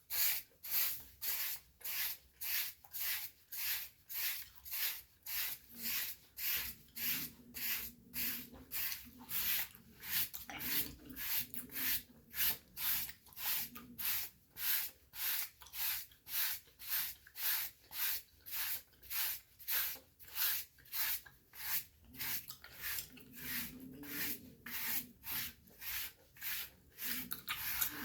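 A dry body brush scrubbing over skin in steady, even strokes, about two scratchy swishes a second.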